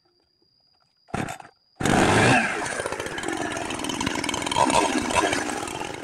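Gasoline chainsaw running under load, ripping along a log, which comes in suddenly about two seconds in after a short burst of the same sound and then runs on steadily.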